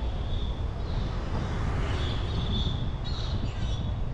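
Town street ambience: a steady low rumble with a high, thin call that comes and goes several times.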